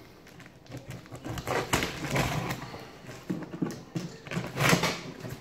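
Large cardboard box being cut open with a knife: the blade scraping and slicing through packing tape and cardboard, with tearing, rustling and knocks on the box in irregular bursts, loudest about two seconds in and again near the end.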